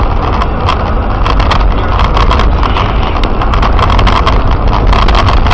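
Car on the move: a loud, steady low rumble with many quick, irregular knocks and rattles over it.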